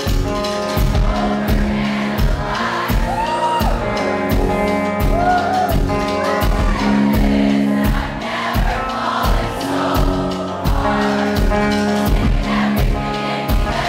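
Live rock band playing a song, with drums keeping a steady beat under electric guitars and bass, and singing over the top.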